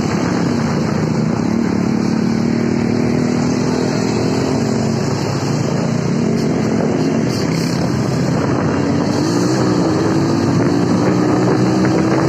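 Motorcycle engine running at road speed, heard from on the moving bike with wind rushing over the microphone. The engine note climbs slowly over the last few seconds.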